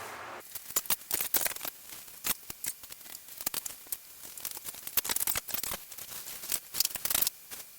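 A box and its packing being opened and handled by hand: a quick, irregular run of crackles and clicks.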